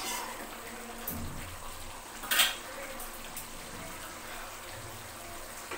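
Paneer curry simmering in a pan with a steady faint sizzle, while a steel spoon stirs and scrapes. About two and a half seconds in there is a sharp metal clink as the spoon is set down on a steel plate.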